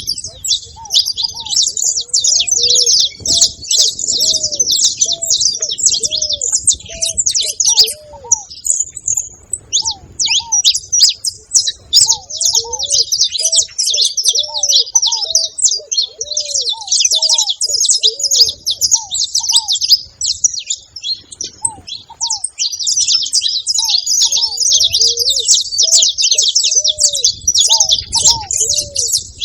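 Saffron finch singing a long, rapid stream of high chirping notes, with short breaks. A second, lower-pitched bird calls in series of short, repeated notes underneath.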